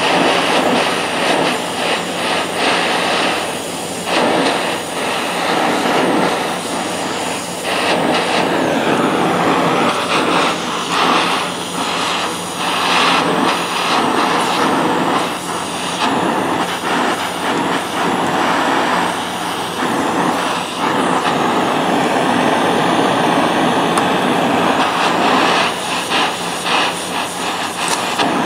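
Oxy-fuel gas torch running with its flame held on the steel claw of a hammer, a steady rushing hiss that wavers in level as the flame is worked over the metal to heat the bent claw.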